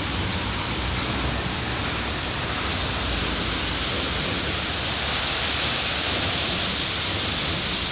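Steady rushing roar of city traffic, with an electric commuter train running along the elevated tracks overhead; an even hiss with no distinct knocks or horns.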